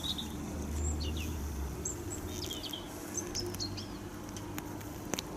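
Small birds chirping in short, high calls scattered throughout, over a low steady outdoor hum, with a couple of small clicks near the end.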